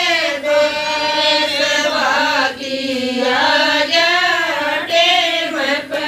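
A group of women singing a Haryanvi wedding folk song (bhat geet) together in long, wavering held notes, with no instruments.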